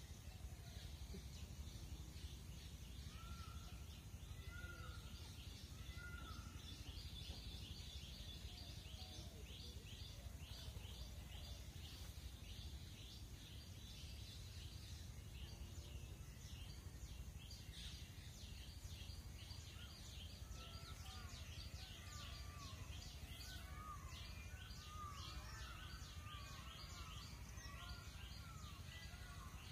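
Faint outdoor ambience with a steady low rumble, small birds chirping and whistling: a fast run of high chirps through the middle and short looping whistles near the start and again in the last third.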